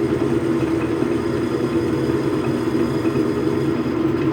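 Logan metal lathe running, a steady mechanical hum from its motor and drive that holds even throughout.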